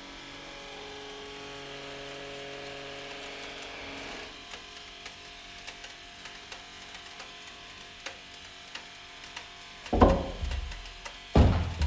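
Yellow apple squeezed under a fist on a press cylinder: a faint steady hum for the first few seconds, then scattered small clicks. About ten seconds in comes a loud thud as the apple squirts out sideways, and a second loud knock about a second and a half later.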